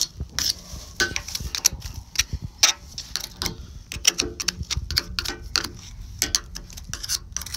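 A steel hand tool scraping and clicking against the steel bucket tooth and adapter while packed dirt is picked out around the tooth retainer: irregular sharp metallic clicks and scrapes.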